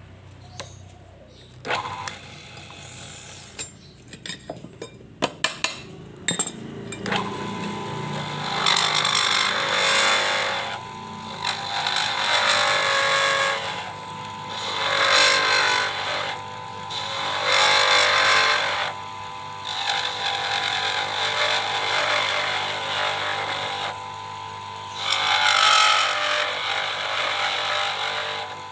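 Handling knocks and clicks, then a small lathe's motor starts running with a steady whine about seven seconds in. Over it, a cutting tool scrapes against the spinning workpiece in repeated loud passes every two to three seconds.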